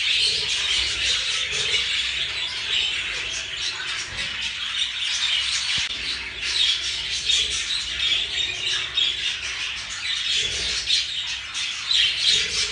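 Budgerigars chattering: a continuous stream of warbles and chirps.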